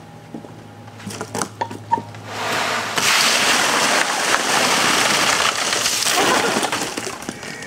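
Ice water pouring and splashing over a person, with ice chunks rattling down, starting about two and a half seconds in, running about four seconds and then tailing off. A few light knocks come before it.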